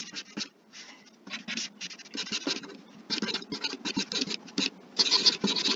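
Stylus scratching across a drawing tablet's surface in a run of short strokes with brief pauses, the strongest strokes near the end.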